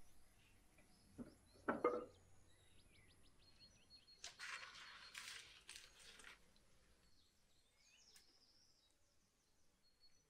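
Firewood logs knocking against each other and the oven floor as they are pushed into a wood-fired clay-and-brick oven, a few sharp knocks between one and two seconds in. About four seconds in, a few seconds of crackling hiss as a burning bundle of kindling flares at the logs.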